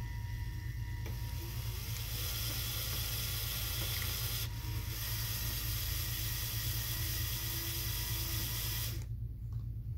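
LEGO Power Functions electric motors and plastic gearing running with a hissing whir, starting about a second in, pausing briefly near the middle, then running again until they cut off sharply near the end.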